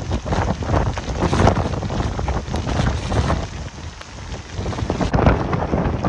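Tropical-storm wind and driving rain, the gusts buffeting the microphone with a heavy rumble. The loudness swells and eases with the gusts, dropping in a short lull partway through before the wind picks up again.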